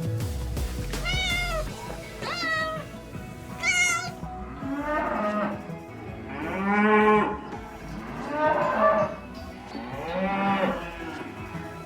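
A domestic cat meowing three times, short high calls, followed by a cow mooing four times in longer, lower calls.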